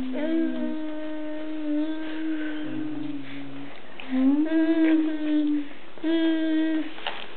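A voice humming a slow tune in long, steady held notes: one long phrase, then two shorter ones with brief gaps between them.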